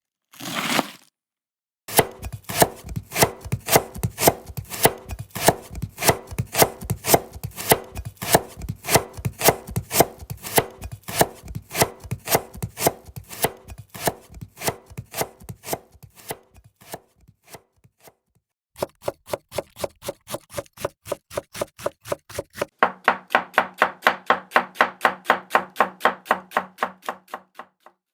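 Japanese kitchen knife (houchou) chopping ingredients on a cutting board in a quick, even rhythm of sharp strokes. The chopping stops briefly partway through, then resumes, and near the end each stroke carries a ringing tone.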